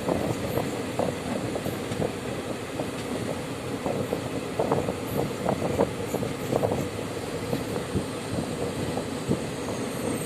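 Jogbani–Kolkata train rolling along the track, its wheels clattering over rail joints in irregular knocks over a steady rumble.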